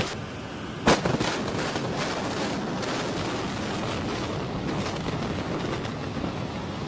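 Building demolition by explosives: a sharp blast about a second in, then a few smaller cracks, then a steady rumble of noise as the structure comes down.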